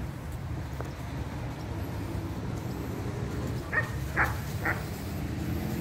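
A dog barks three short times in quick succession, about four seconds in, over steady low background noise.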